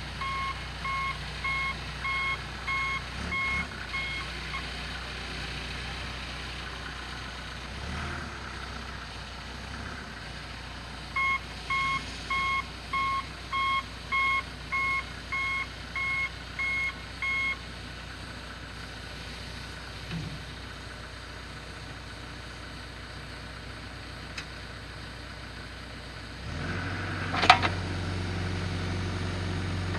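Backhoe's reverse alarm beeping about twice a second in two runs as it backs up, over its diesel engine running steadily. Near the end the engine gets louder under load and there is a single sharp clank.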